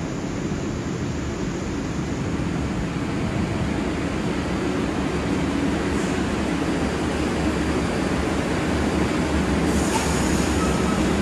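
New York City IRT subway train running in the station, a steady rumble and rattle that grows slowly louder.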